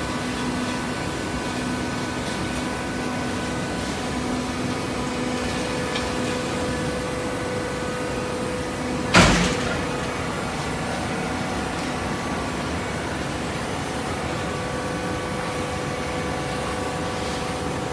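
Horizontal hydraulic baler running: a steady mechanical hum from its motor and hydraulic pump, with one loud clunk about halfway through.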